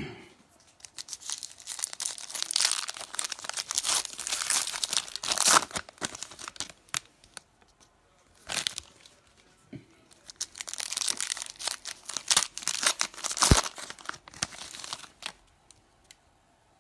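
Foil wrappers of Donruss football card packs crinkling and tearing as the packs are ripped open, in two spells of a few seconds each. A sharp tap falls near the middle and a louder knock late on.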